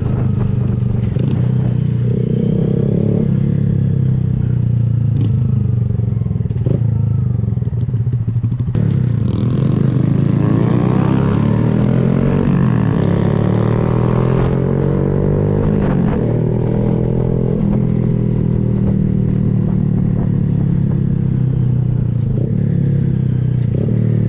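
Honda Grom's small single-cylinder engine running through an aftermarket Kemimoto exhaust while riding, its pitch climbing and falling as the throttle opens and gears change about a third of the way in, with wind rushing on the microphone at the same time.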